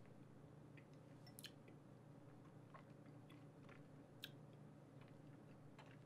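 Near silence with faint, scattered wet mouth clicks as a sip of whisky is worked around the mouth, over a low room hum.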